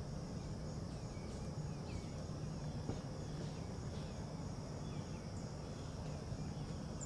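Outdoor ambience: a steady high insect drone with scattered short bird chirps, over a low steady hum.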